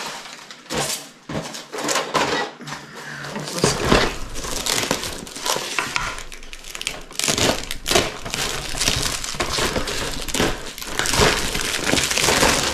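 Clear plastic wrapping on a cardboard model kit box crinkling and crackling in irregular bursts as it is handled and pulled off, along with cardboard boxes being lifted and shuffled.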